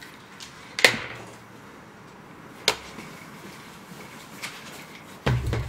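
Two short, sharp knocks about two seconds apart, then a louder, duller thump near the end.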